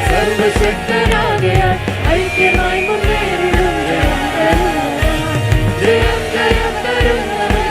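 Worship band playing a Malayalam Christian song, with a steady drumbeat about twice a second under a melody and chords.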